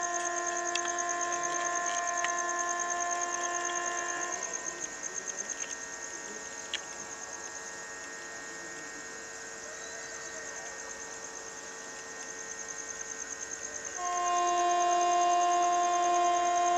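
Approaching express train's locomotive horn sounding two long, steady blasts: the first fades out about four seconds in, and a louder one starts near the end. Crickets chirr steadily underneath.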